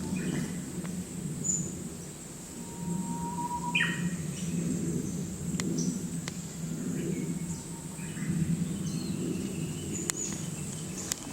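Male Japanese paradise flycatcher calling: scattered short chirps and one longer held note that sweeps sharply upward a little before the middle, over a steady low background hum.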